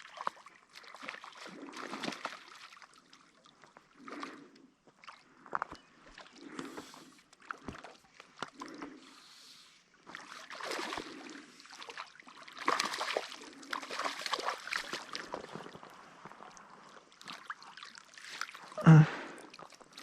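Shallow river water sloshing and splashing in irregular bursts as a freshly hooked grayling is landed and handled, with one brief louder sound near the end.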